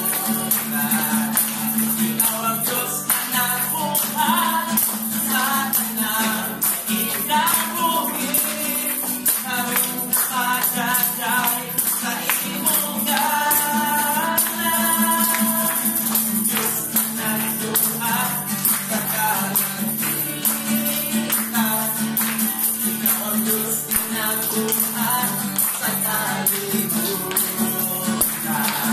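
Congregation singing a worship song together, accompanied by a strummed acoustic guitar, with hand clapping and a tambourine shaken on the beat.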